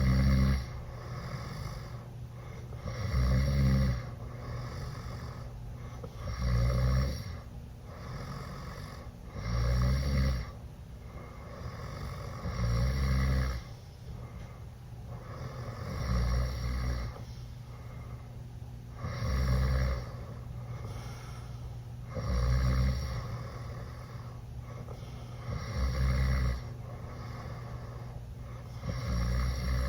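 Teenage boy snoring loudly with his mouth open while sleeping off alcohol, one harsh snore about every three seconds, each lasting about a second, with quieter breathing between.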